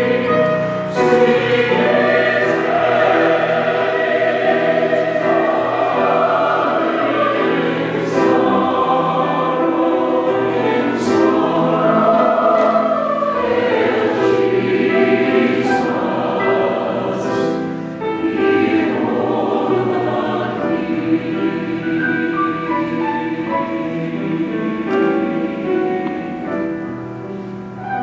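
A mixed four-part (SATB) choir singing a sacred choral anthem, with sustained sung chords and clear consonants.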